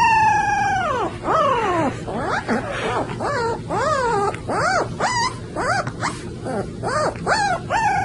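Puppy howling: one long howl sliding down in pitch, then a run of short howls that each rise and fall, about two a second.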